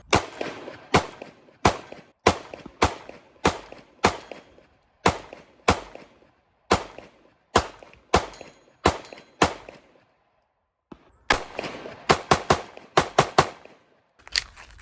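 Springfield Hellcat 9mm pistol being fired in a string of sharp shots, about two a second, each with a short ring. About two-thirds through there is a pause of about a second, then a quicker burst of shots and one more near the end.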